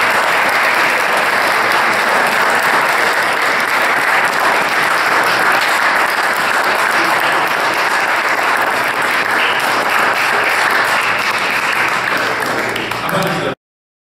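Audience applauding steadily, a dense run of clapping that cuts off suddenly near the end.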